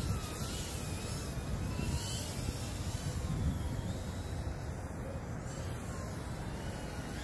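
Distant whine of a Beta75 Pro 2 brushless whoop quadcopter's motors, its pitch gliding up and down with the throttle, over a steady low outdoor rumble.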